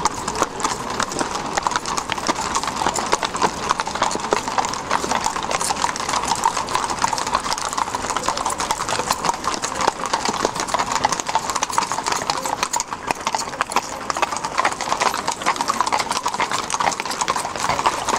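Many horses walking past, their hooves clip-clopping in a continuous, overlapping clatter.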